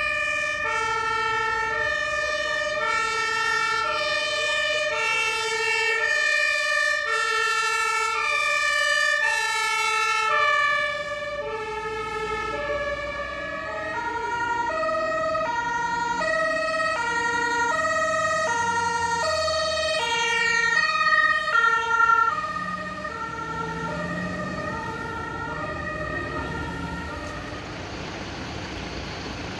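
German two-tone emergency siren (Martinshorn) on a fire brigade vehicle, sounding its alternating high and low notes about every half second. About eleven seconds in, both notes shift lower, and the siren fades out near the end.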